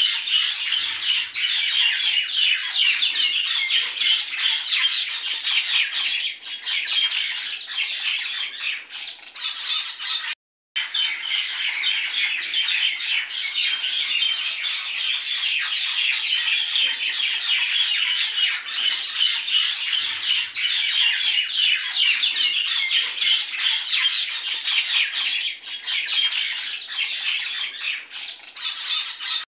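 Dense, continuous chattering of many birds chirping and squawking, broken once by a sudden half-second silence about ten seconds in.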